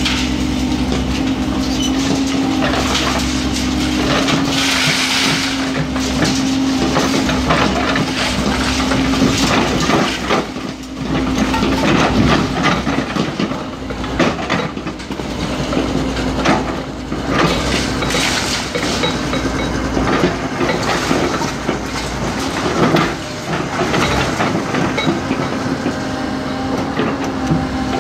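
Komatsu hydraulic excavator running steadily while its demolition attachment crunches and breaks concrete walls, with irregular cracks, knocks and rubble clattering down.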